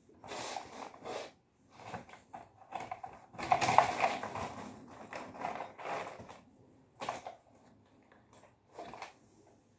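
Cardboard jigsaw pieces being handled and shuffled on a tray: a run of irregular rustles and clicks, loudest about four seconds in.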